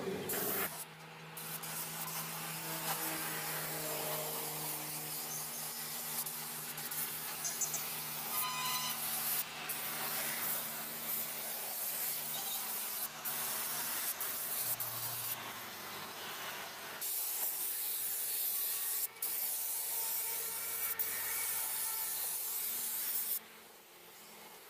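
Compressed-air paint spray gun hissing as it sprays paint, in long stretches broken by short pauses, with a low steady hum underneath.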